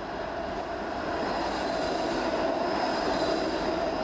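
A streetcar rolling along its street rails and passing close by, a steady rumble with a faint high whine on top, growing louder over the first second.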